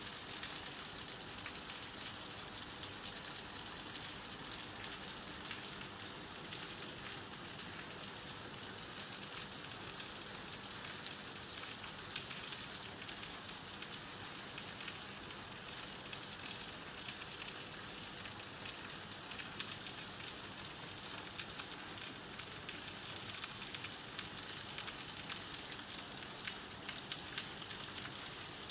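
Steady rain falling: an even hiss made of many small drop ticks, with no let-up.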